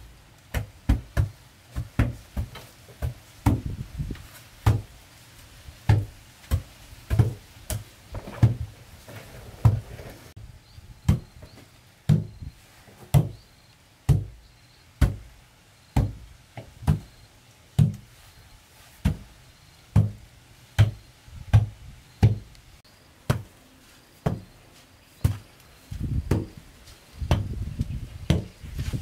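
Repeated dull thuds of a brick pounded down onto a bare earth floor, tamping the soil firm, with strikes of a hoe blade chopping into the dirt during the first stretch. The impacts are irregular, about one or two a second, and come faster near the end.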